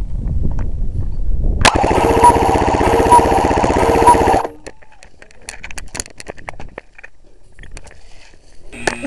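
An airsoft electric gun firing a full-auto burst of about two and a half seconds: a rapid, even buzzing rattle that starts with a sharp click and stops abruptly. Rumbling movement noise comes before it, and scattered quieter clicks and rustles follow.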